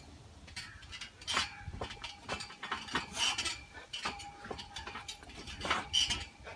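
Steel pull-up bar of an outdoor workout rig clanking in its fittings under a swinging body, with irregular clicks and knocks starting about half a second in and a ringing metal tone after some of them.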